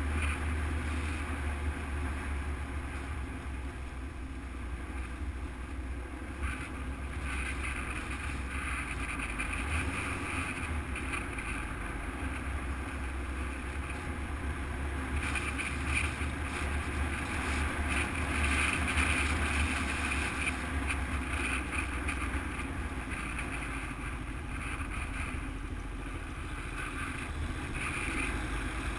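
Enduro motorcycle engine running steadily while riding, with wind noise buffeting the camera microphone, louder in the middle stretch.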